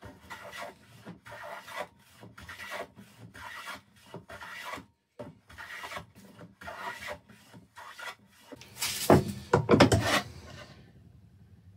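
Hand plane shaving a chamfer along the edge of a wooden board, in short rasping strokes about two a second. About nine seconds in come a few louder knocks and scrapes as the board is handled in the bench vise.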